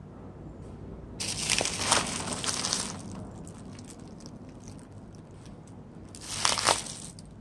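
Plastic sack of dry cat food crinkling as it is handled, in two bursts: one of about two seconds starting just over a second in, and a shorter one near the end.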